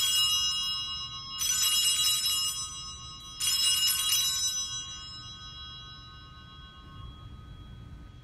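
Altar bells rung at the elevation of the chalice during the consecration. A ring is already sounding and dies away, then two more follow about two seconds apart, the last fading out over several seconds.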